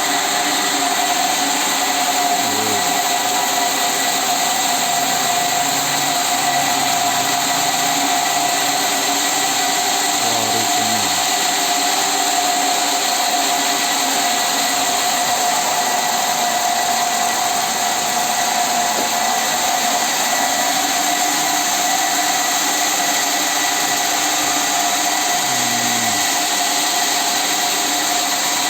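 Sawmill machinery running steadily, a constant high whine over a broad machine noise. Three times a short tone falls in pitch.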